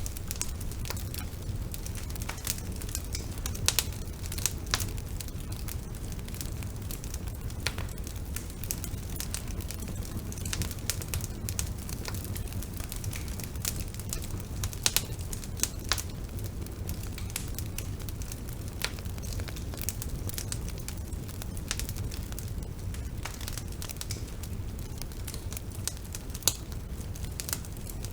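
Bonfire burning: a steady low rumble of the flames with frequent sharp, irregular crackles and pops of burning wood.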